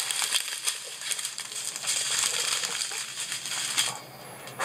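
Small plastic zip bags of diamond-painting drills crinkling and rustling as they are handled and laid down, with many quick little crackles; it goes quieter about four seconds in.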